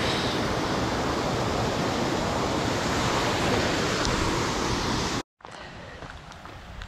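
Mountain stream cascading over rocks, a loud steady rush of water. About five seconds in it cuts off abruptly, leaving a much quieter background with a few faint ticks.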